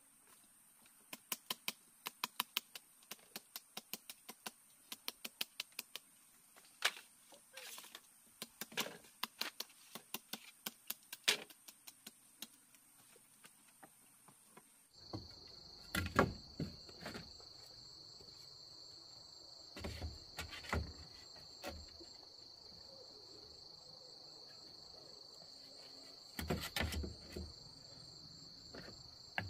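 Insects trilling in a steady high drone, with many sharp clicks and taps through the first half. About halfway the drone drops to a lower pitch, and a few louder clusters of knocks come at intervals.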